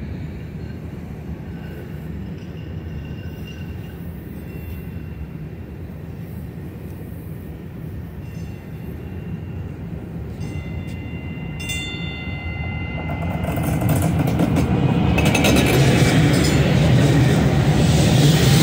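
Electric light rail train approaching and passing close by: a low rumble at first, growing loud from about two-thirds of the way in as the cars run past with rumbling wheel noise.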